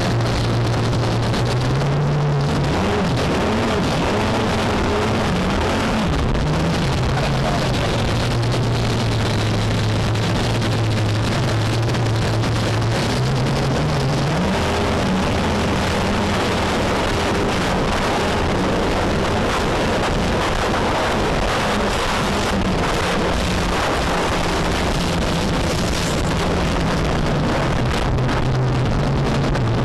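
Speedboat engine running hard at speed, its note stepping up in pitch a couple of times, under a steady rush of wind and water spray on the microphone.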